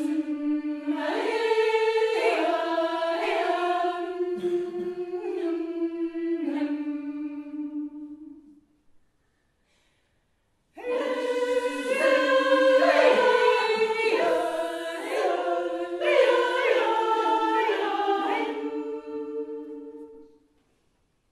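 Female a cappella vocal ensemble singing held chords in two phrases of about nine seconds each, separated by a short silence.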